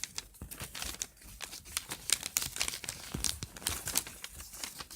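Sheet of paper being folded and creased by hand into the wings of a paper airplane: irregular crinkling and rustling with short sharp crackles.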